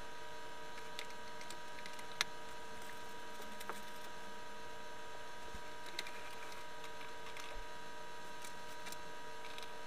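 A steady, thin electrical whine of recording noise, with a few faint clicks and taps scattered through it.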